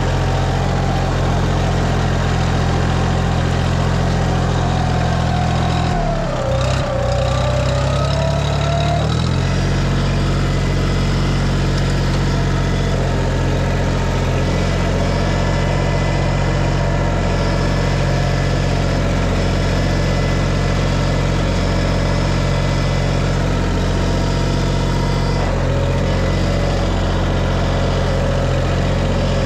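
Tractor engine running steadily under work, briefly dropping in pitch about six seconds in and picking back up a few seconds later.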